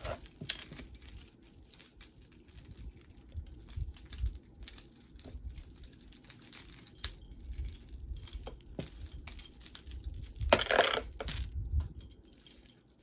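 Strands of a beaded multi-strand necklace being handled, with scattered small clicks of beads and chain and rustling, and a louder rustle about ten and a half seconds in.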